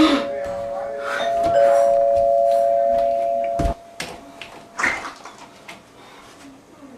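Doorbell chime ringing in two steady tones, the lower note sounding again about a second and a half in, then cutting off suddenly with a click a little past halfway. A few faint knocks follow.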